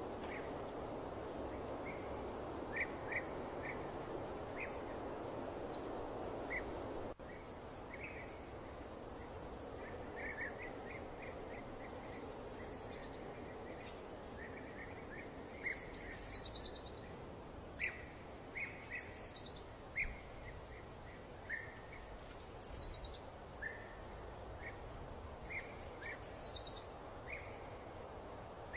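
Birds calling over a steady background hiss: short chirps throughout, and from about halfway a high call that slides downward, repeated about every three seconds. The hiss drops abruptly about seven seconds in.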